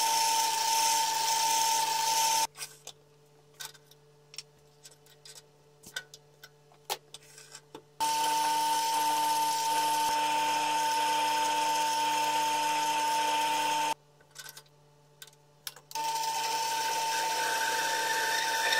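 Small metal lathe running with a steady whine while it drills a 5 mm hole with a bit fed from the tailstock. It stops twice, and between the runs there are scattered clicks and knocks of handling.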